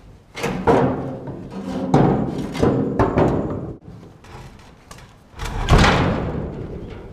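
Heavy wooden knocks and thuds on a steel boat deck as a big wooden mast is levered along with a wooden board. The steel rings briefly after each blow. There are several knocks, with the loudest near the end.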